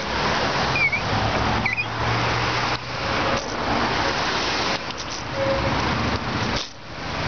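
Wind rushing over the microphone of a bicycle-mounted camera moving downhill, mixed with the noise of passing car traffic; a car engine hums low for a couple of seconds near the start.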